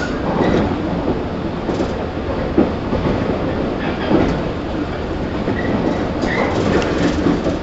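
Running sound inside a 115 series 1000-subseries electric train car (KuMoHa 115-1005) under way: a steady rumble of wheels and running gear with knocks from the rail joints and a brief high wheel squeal about six seconds in.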